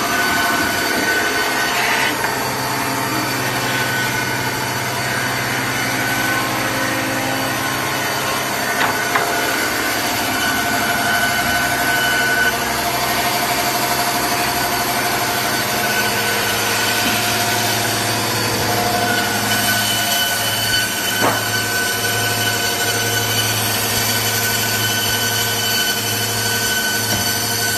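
Electric wood board band saw machine running and sawing boards fed in by its conveyor, with a steady low hum and a steady whine. A couple of brief knocks, about nine seconds in and again about twenty-one seconds in.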